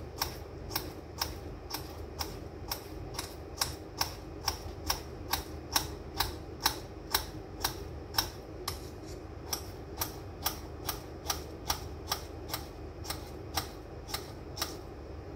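Kitchen knife slicing a cucumber on a cutting board: a steady run of crisp chops, about two a second.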